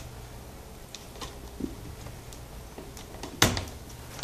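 Plastic screen bezel of a laptop being fitted back on: a few light clicks, then two sharp snaps near the end as its clips catch.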